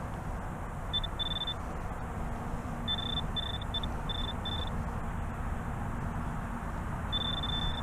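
Metal detector giving short high-pitched beeps as it is swept over a shallow buried target: a few about a second in, a quick run of them around three to five seconds in, and one longer tone near the end. Steady low wind rumble underneath.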